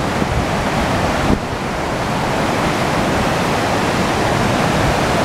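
River rapids rushing steadily, a loud even noise of white water. Wind buffets the microphone during the first second or so.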